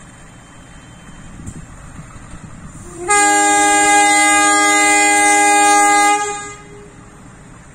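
KAI diesel locomotive's horn sounding one loud, steady blast of about three seconds, starting about three seconds in. It is semboyan 35, the driver's signal that the Kutojaya Selatan train is departing. A low rumble runs before and after the blast.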